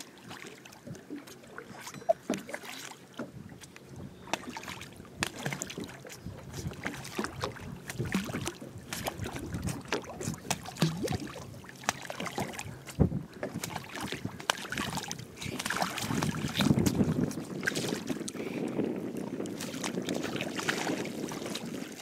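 Choppy lake water splashing and lapping close to a small boat, with wind on the microphone; the splashing grows louder and busier in the second half.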